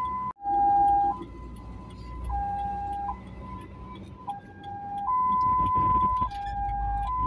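Ambulance two-tone hi-lo siren, switching between a higher and a lower tone about once a second, heard from inside the ambulance's cab over engine and road noise.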